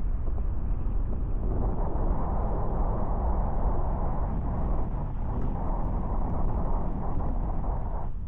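Steady rushing wind noise on the microphone with a deep rumble underneath.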